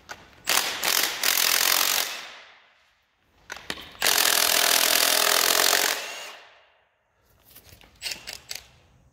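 Handheld power tool run twice, for about two seconds each time, each run trailing off, with light metal clinks between the runs and near the end: removing the connecting-rod caps from a Dodge 5.9 Magnum engine during teardown.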